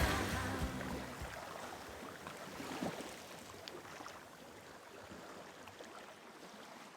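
Background music ending about a second in, leaving a faint, even rushing noise with a few small clicks that fades away toward silence.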